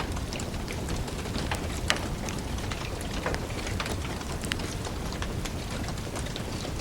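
Wood fire burning with a steady low rumble and irregular crackles and pops, one sharper pop about two seconds in.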